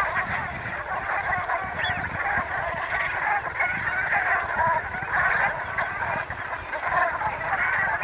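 Flock of brent geese calling together, many short overlapping calls running on without a break.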